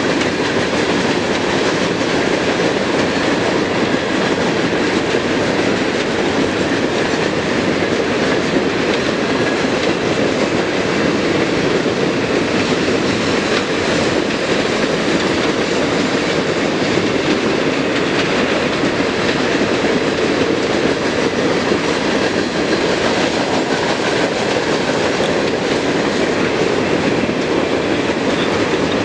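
A CSX coke train's string of freight cars rolling past at steady speed: continuous noise of steel wheels running on the rails, even in level throughout.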